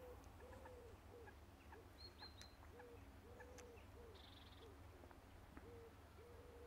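Near silence with a faint bird calling: low repeated notes in phrases of a short note, a longer note and a few short ones, the phrase repeating about every three seconds.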